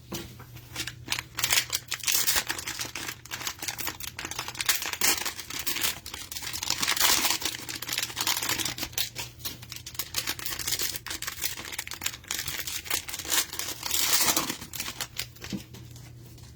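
Cellophane wrappers of trading-card cello packs crinkling and tearing in dense, irregular crackles as the packs are opened, over a faint steady low hum.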